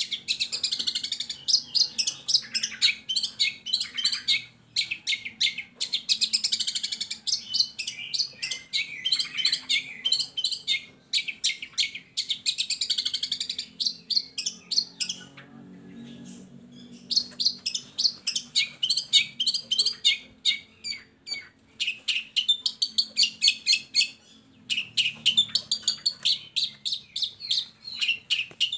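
Long-tailed shrike (cendet) song: rapid chattering phrases of quick, high chirps and clicks. The phrases are broken by short pauses, with a longer lull about halfway through.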